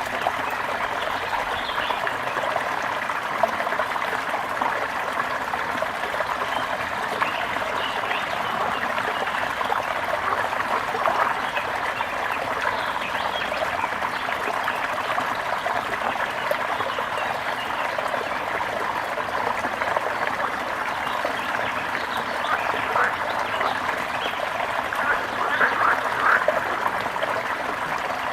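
Water trickling and splashing steadily, with a few louder short splashes or chirps about 25 seconds in.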